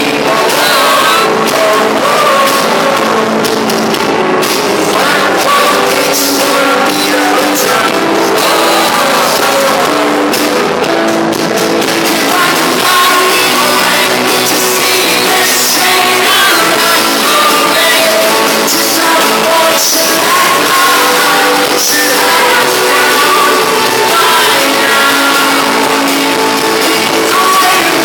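Rock band playing live in a large hall, with a lead singer's voice over guitars and drums.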